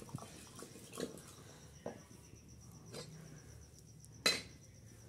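Soft knocks about once a second, then a sharp metallic clink about four seconds in as a metal ladle strikes a metal wok on the fire. A faint, steady cricket chirring runs underneath.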